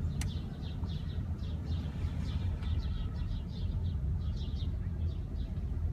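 Small birds chirping, short high notes repeated several times a second, over a steady low rumble; a sharp click just after the start.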